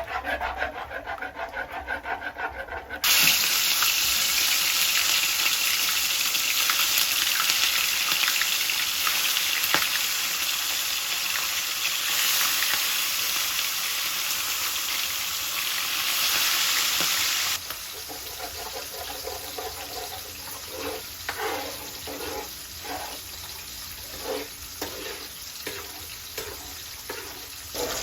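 Food frying in a pan and being stirred with a spatula. Scraping stirring strokes come first, then a loud steady hiss for about fifteen seconds that cuts off abruptly, then quieter sizzling with repeated stirring strokes.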